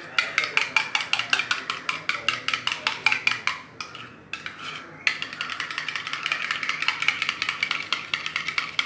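Steel spoon whisking curd in a small steel bowl, clinking rapidly against the rim at about nine strokes a second. The clinking breaks off briefly about four seconds in, then goes on as softer scraping and stirring with lighter taps.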